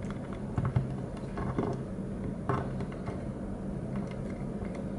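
Scattered light clicks and small knocks of a plastic Monkey D. Luffy Happy Meal toy being handled, its limbs moved and the figure set down, over a steady low hum.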